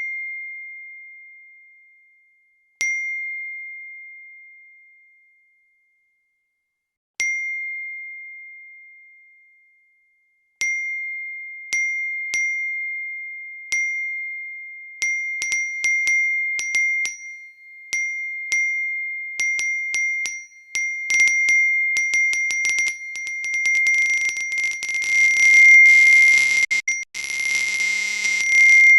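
iPhone notification chime going off over and over: a single bright ding, a few seconds apart at first, then coming faster and faster until the dings overlap into a continuous, louder jumble near the end.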